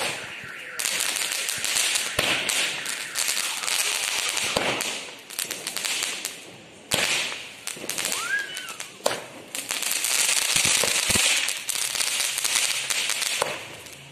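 Ground fountain firework (anar) spraying sparks: a loud crackling hiss with scattered sharp pops. It dies down a little before the middle, then picks up strongly again about halfway through.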